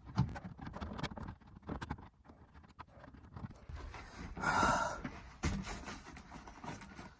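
Scattered small clicks and taps of hand work with panel screws, and a heavy breath out about four and a half seconds in, followed by a sharp knock.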